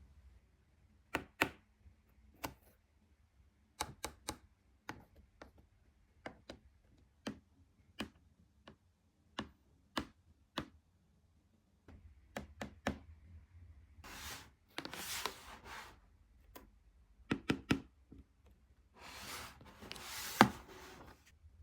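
Hands handling toy packaging: scattered light taps and clicks on cardboard and plastic, with two spells of rustling and crinkling about two-thirds of the way through and near the end, and a sharper knock among the second.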